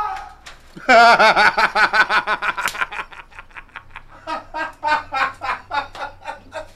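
A man laughing hard in a rapid string of pulses, starting about a second in, loud at first and trailing off into softer, sparser chuckles.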